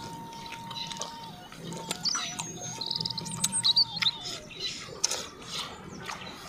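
Birds chirping and trilling, with high quick calls loudest around the middle, over a thin held tone that steps down and up between a few pitches. Scattered soft clicks of chewing and biting into grilled chicken.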